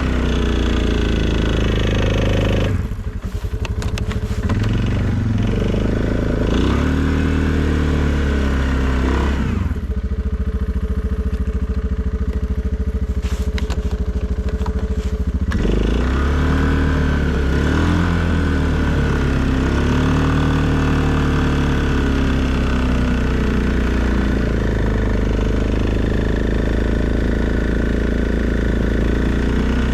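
Suzuki KingQuad ATV engine running under snow-plowing work, its pitch rising and falling as the throttle is worked. It drops briefly about three seconds in and runs duller and lower from about ten to fifteen seconds in.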